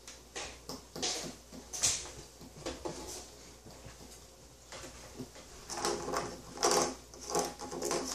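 Hollow plastic surprise eggs being picked up and handled on a wooden table: a series of short, light knocks and clicks.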